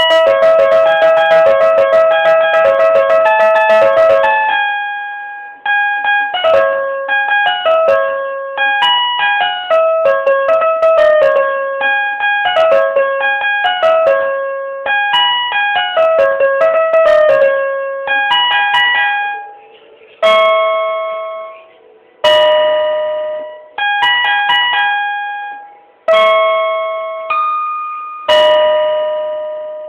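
Electronic keyboard played by hand in a piano-like voice: a fast run of repeated notes for the first four seconds or so, then a melody of single notes. From about two-thirds of the way in it slows to separate struck notes and chords, each fading out before the next.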